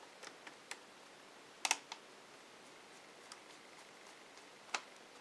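Scattered light clicks and taps of small parts being handled on an opened laptop's chassis. The loudest is a quick double click about a second and a half in, with one more near the end.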